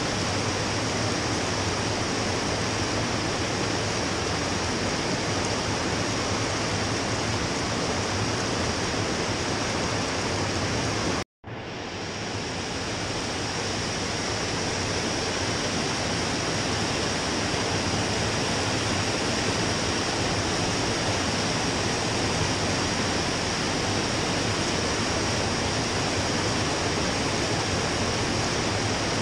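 Steady rush of flowing water from a spring-fed trout stream. It cuts out for a moment about eleven seconds in, then comes back a little quieter and swells back to full level.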